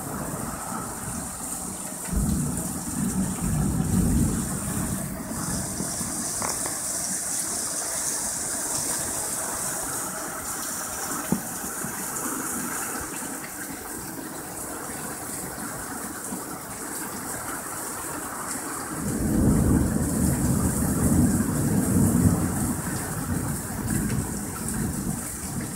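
Heavy rain pouring down steadily in a thunderstorm, with low thunder rumbling twice: a short roll a couple of seconds in, and a longer, louder roll starting about two-thirds of the way through.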